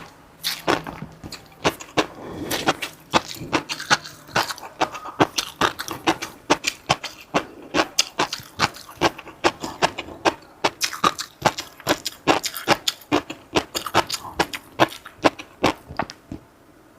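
Close-miked eating sounds from a mukbang: a quick, steady run of sharp wet smacks and crunches from chewing, about three or four a second.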